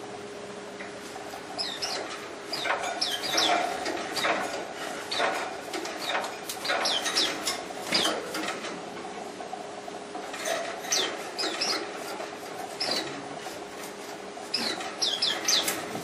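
Caged white-eyes giving short, high, falling chirps in quick clusters, with wing flutters and sharp clicks from feet and wings striking the perches and wires as one bird tumbles backwards over and over. A faint steady hum runs underneath.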